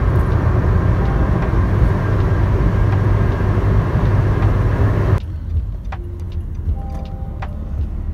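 Road noise inside a car cruising at highway speed: a steady, loud rumble of tyres, engine and wind. About five seconds in it drops suddenly to a quieter rumble of slower driving, with a few light clicks.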